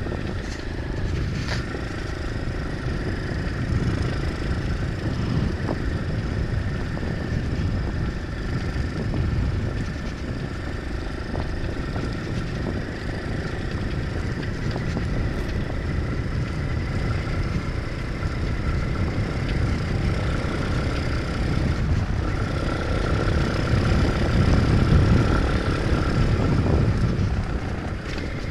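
Nitro Sky 125cc pit bike's single-cylinder engine running steadily under way, heard from the rider's helmet camera, with a heavy rumble of wind on the microphone. It gets louder for a few seconds near the end.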